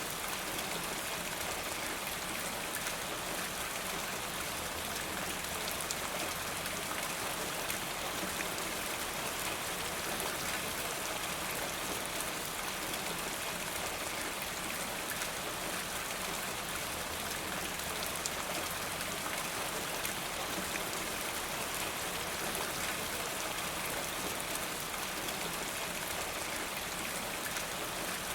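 Steady rain with drops spilling from a rain gutter: an even hiss flecked with many small drop ticks.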